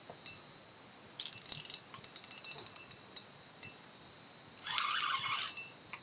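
Spinning fishing reel clicking in three short bursts of rapid ticks while a hooked eagle ray is on the line. The middle burst is a run of evenly spaced ticks, about ten a second.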